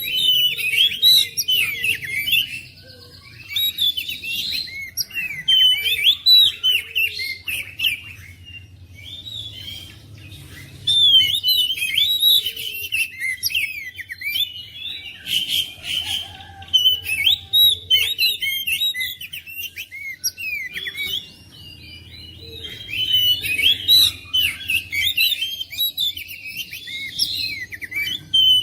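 Oriental magpie-robin (kacer) singing a fast, varied run of high chirps and whistles, broken by a few short pauses.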